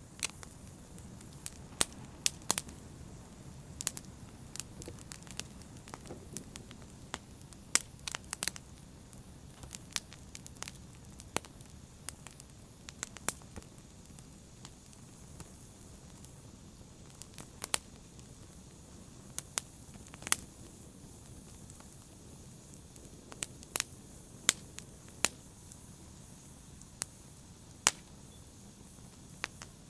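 Fireplace fire crackling: sharp, irregular pops and snaps, roughly one a second, over a steady low hiss of burning.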